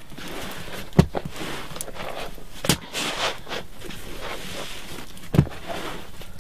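Three sharp thumps, spaced unevenly over a few seconds, over a steady hiss of background noise.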